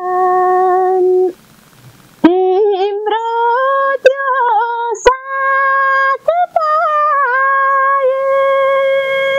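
A woman singing a Nepali folk song unaccompanied, in long held notes with wavering ornaments. She pauses briefly for breath about a second in, then comes back on a higher note. A sharp click comes about five seconds in.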